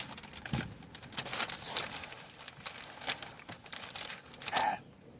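Crinkling and rustling of takeout packaging being handled: a run of short, irregular crackles.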